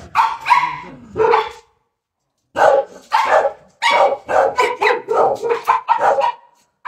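A dog barking in a rapid series of short barks, about three a second, with a pause of about a second after the first four.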